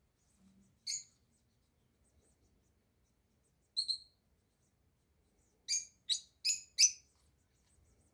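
Small bird chirping: seven short, high chirps, one about a second in, a quick pair near the middle, then a run of four, the last the loudest.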